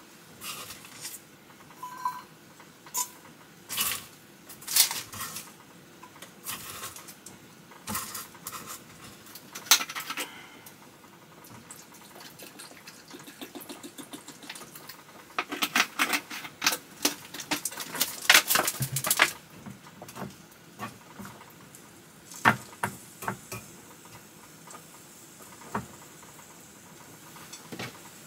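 Scattered light clicks and knocks of small objects being handled, with a dense run of rapid clicking a little past the middle.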